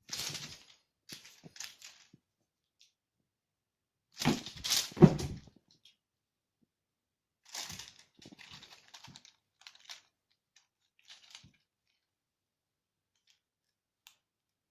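Scuffling and crinkling of a kitten playing with a swung toy: short bursts of scraping and rustling, loudest in a cluster of thumps about four to five seconds in.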